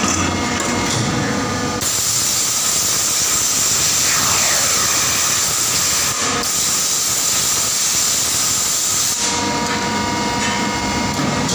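Compressed-air spray gun hissing loudly into the open die of a 120-ton die casting machine, the spraying step of the casting cycle. The hiss starts about two seconds in, breaks off briefly midway and stops about two seconds before the end. Before and after it the machine's hydraulic unit hums steadily.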